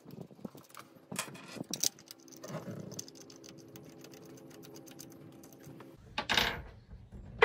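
Hand ratchet with a 10 mm deep-well socket clicking in quick, uneven ticks as the fuel rail nuts are backed off their studs. A brief louder noise comes near the end.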